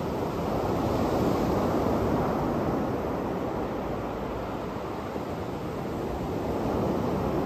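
Surf breaking on a sandy beach: a steady wash of waves that swells about a second in and again near the end.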